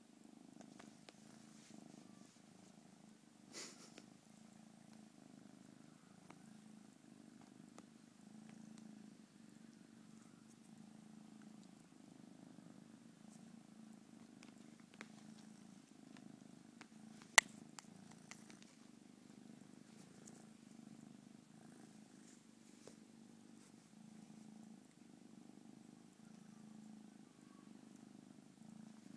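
Kitten purring steadily close up, the low purr swelling and easing in a slow rhythm. A few faint clicks, and one sharp click about two-thirds of the way through.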